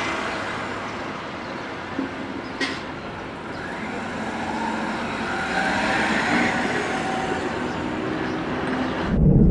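Car driving off amid road traffic noise, a steady hiss and rumble that swells and fades midway.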